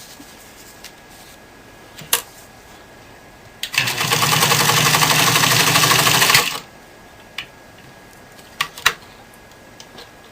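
Pfaff 230 sewing machine running for about three seconds in the middle, stitching through four layers of vinyl, with a few separate clicks before and after the run.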